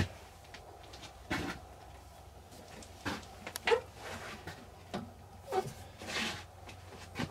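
Knocks and clunks of a square wooden blank being seated between centers on a wood lathe, with the tailstock handwheel cranked up to hold it; a sharp knock right at the start is the loudest, followed by about half a dozen softer, irregular clunks. A faint steady low hum lies underneath.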